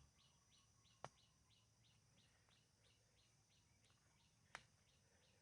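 Near silence with faint, steady high chirping repeated about four or five times a second, and two sharp clicks, one about a second in and one near the end.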